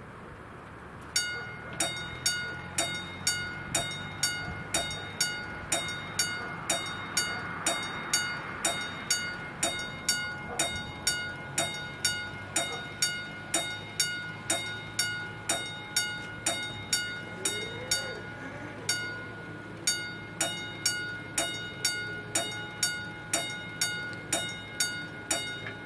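Level crossing warning bell ringing as the crossing activates. It starts about a second in and strikes steadily at roughly two and a half strokes a second, each stroke ringing out. It breaks off briefly once near the end.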